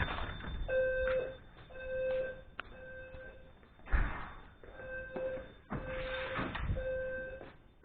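Fire alarm horn of a Notifier 320C system sounding its evacuation signal during a drill: three half-second beeps about a second apart, then a longer pause, repeating. Several clunks and rustles break in, the loudest about four seconds in.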